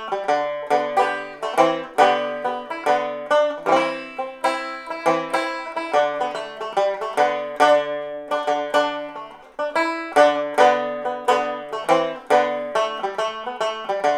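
Resonator banjo played solo, a quick run of picked melody notes with chords in an Irish folk tune, with a brief break about nine and a half seconds in.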